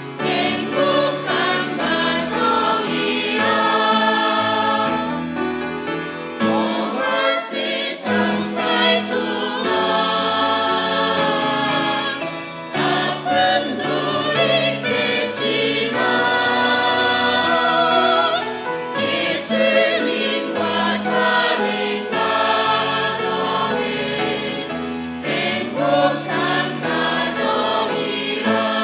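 A group of voices singing a Christian song in harmony, with held notes and vibrato.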